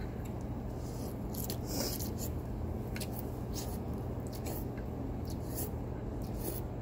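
Close-up eating sounds: an irregular scatter of small clicks, smacks and crinkles from mouth and utensils, over a steady low hum.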